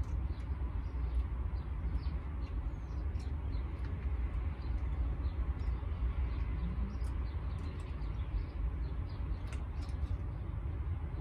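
Outdoor ambience: a steady low rumble with many short, faint high ticks and chirps scattered through it.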